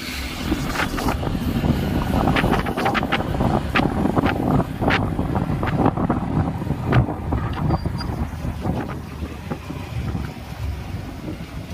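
Wind buffeting the microphone on a moving motorcycle, over the engine and road noise. Many short crackles come in the first half, thinning out after about six seconds.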